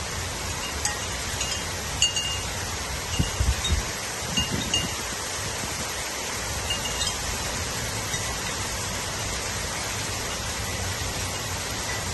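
Steady heavy rain, with a scattering of short, high metallic pings through the first half and a few dull low thumps a few seconds in.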